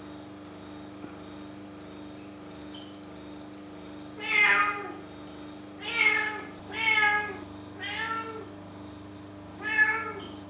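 Domestic cat meowing five times, with pitch rising then falling in each call; the first call is the longest and the fourth the softest.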